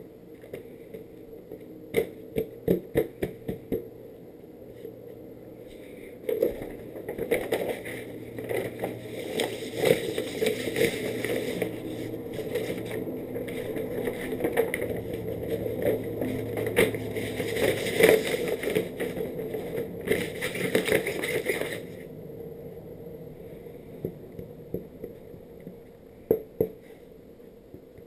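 Skateboard grip tape sheet being handled and its paper backing peeled off: a few sharp taps, then about fifteen seconds of dense paper rustling and crackling that stops abruptly.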